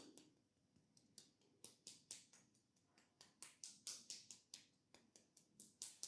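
Massage hand sounds: a quiet, irregular run of soft clicks and taps, a few a second, thickest through the middle.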